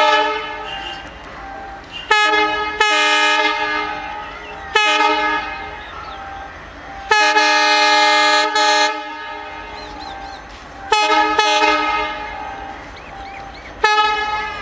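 Indian Railways diesel locomotive horn sounded repeatedly as the train approaches: eight loud blasts, mostly short, two of them in quick pairs, and one held for about two seconds near the middle.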